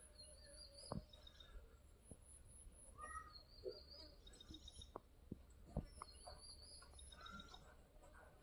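Faint, repeated high bird chirps over a low steady hum, with a few soft knocks.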